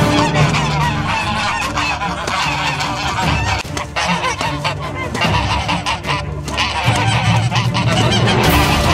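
A flock of white domestic geese honking loudly and repeatedly while two ganders fight among them.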